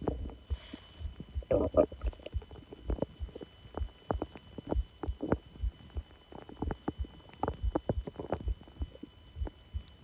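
Human stomach growling and gurgling: a run of short, irregular pops and bubbling gurgles, with a louder, longer gurgle a little under two seconds in.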